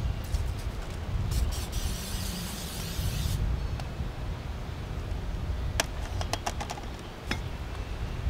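Aerosol cooking spray hissing for about two seconds as the underside of a cast iron bowl is greased, followed a few seconds later by a scattering of light clicks and knocks.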